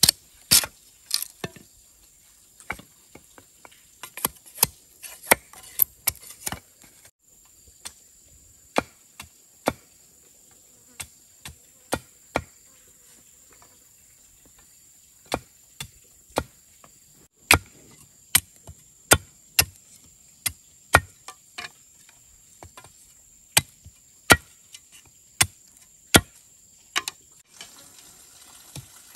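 Machete blade striking and chopping bamboo in sharp, irregular knocks, quick and bunched at first, then about one a second. Under it runs a steady high-pitched insect drone.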